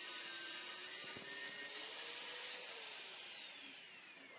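Electric angle grinder with a cut-off disc cutting through an iron pipe: a high whine over a dense grinding hiss. Past the middle the whine rises a little, then falls steadily and the noise fades as the grinder is lifted off and the disc spins down.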